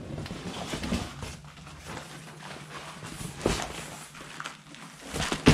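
Cardboard shipping box being pulled off a steel dirt-bike crate: rustling cardboard and a series of irregular knocks and bumps, the sharpest about three and a half seconds in and right at the end, over a faint low steady hum.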